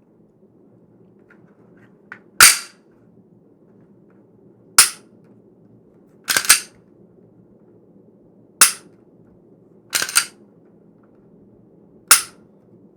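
Six sharp, loud snapping clicks, roughly one every two seconds, a few of them doubled, over a faint steady hum.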